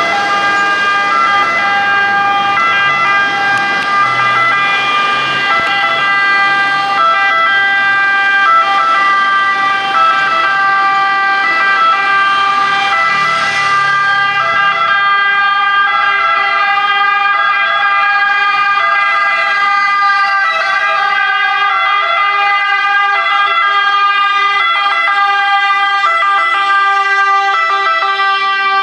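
Italian fire engine's two-tone siren sounding continuously, switching back and forth between two pitches.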